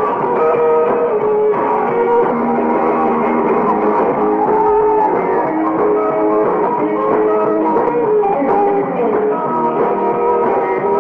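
Live rock and roll band playing, with electric guitar to the fore and no vocals transcribed.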